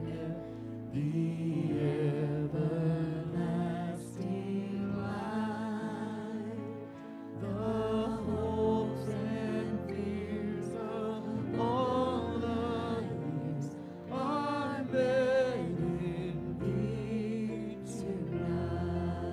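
Slow church worship music: sustained chords under a melody line with a wavering vibrato. No words are clear.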